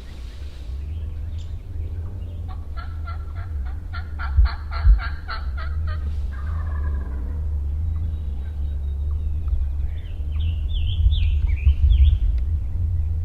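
Wild turkey calls: a run of about a dozen evenly spaced sharp notes from about two to six seconds in, then gobbling and further warbling calls near the end. A steady low rumble runs underneath.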